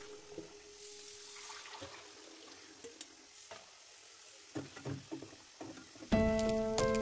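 Tap water running faintly over broccoli stem pieces in a stainless steel mesh strainer, then a few light knocks of the strainer against the pot as the pieces are tipped in. Background music comes in loudly near the end.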